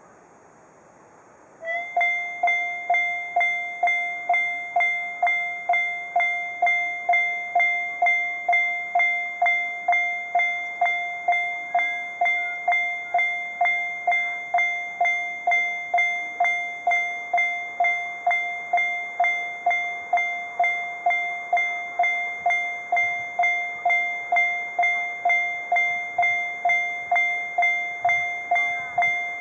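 Japanese JR level-crossing alarm starting up about two seconds in: an electronic bell sounding one ringing tone, struck about twice a second, each strike fading before the next.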